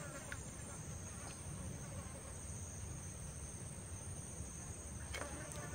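Steady high-pitched drone of insects, two unbroken shrill tones, over a low rumble, with a few faint clicks.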